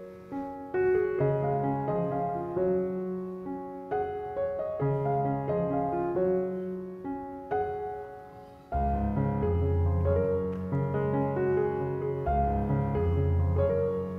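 Background music: a piano tune, with a deeper bass part joining about nine seconds in.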